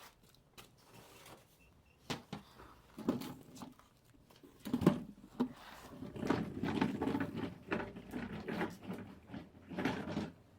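Irregular scraping and rustling with sharp knocks, typical of a chicken cage being cleaned; the loudest knocks come about five seconds in, followed by a denser stretch of scraping.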